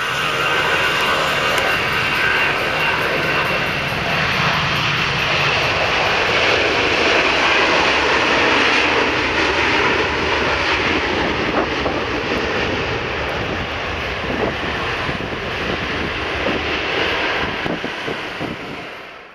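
Jet engines of a Boeing 747 landing and rolling out on a wet runway: a loud, steady rush of engine noise with a high turbine whine that fades after about four seconds.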